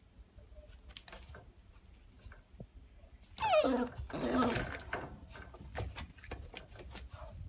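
Shiba Inu puppy vocalising in its crate. About three seconds in there is a whining cry that falls in pitch, then a second, longer cry. Light clicks and rattles against the wire crate bars come before and after.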